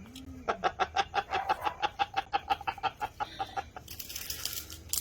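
An old man's cackling laugh from a toothless mouth: a rapid run of short pitched "heh-heh" pulses, about eight a second for a couple of seconds, trailing off into a breathy hiss near the end.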